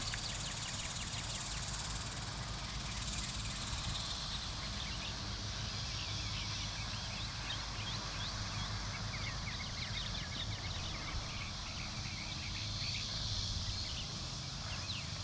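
Outdoor evening ambience: insects trilling in a steady high band, with many short chirps scattered throughout, over a steady low rumble.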